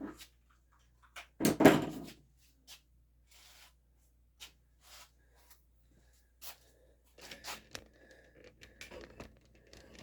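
Handling noises: a loud knock about a second and a half in, then scattered clicks and rustles as the airgun and gear are handled and set up for the next shot.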